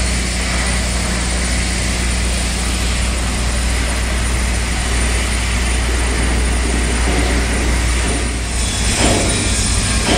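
Shipyard work noise: a steady low machinery drone with a hiss over it. About eight and a half seconds in the sound changes and a few sharp metallic knocks come in.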